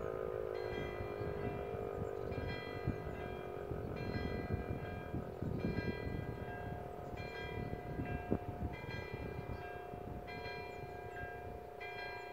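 DS977 motor siren's howl slowly falling in pitch as it runs down. Over it, a bell-like ringing strike repeats about every second and a half.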